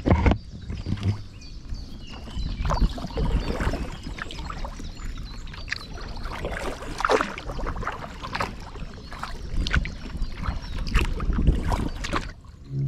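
Kayak paddle strokes splashing in the water: irregular splashes every second or so over a low rumble.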